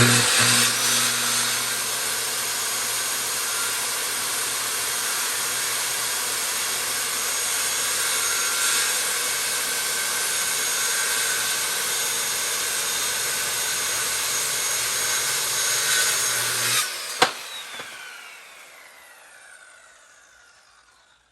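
Electric power saw cutting through a wooden panel: the motor starts suddenly and runs steadily for about seventeen seconds, then a click as it is switched off and a falling whine as it winds down.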